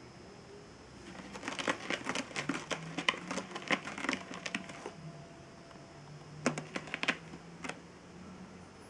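Cardboard box crackling and crinkling as a cat shifts about inside it: a run of irregular sharp crackles for a few seconds, then a few more in a second short cluster.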